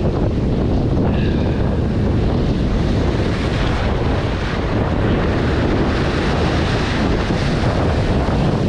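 Wind buffeting the microphone over waves breaking and churning into foam on the rocks just below: a steady, loud rush of noise.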